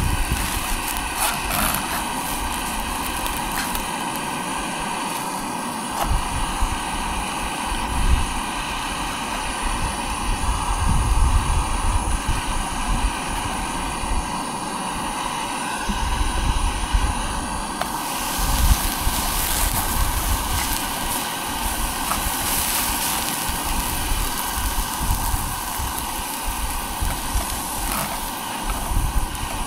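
Buttered toast frying in a pan over a gas stove flame turned low: a steady hiss with a brighter, hissier stretch from about eighteen seconds in. Gusts of wind rumble on the microphone now and then.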